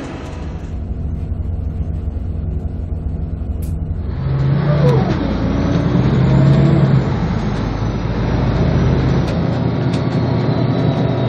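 City bus engine and road noise heard from inside the cabin, growing louder about four seconds in as the bus picks up speed, with a high whine that rises and then slowly falls.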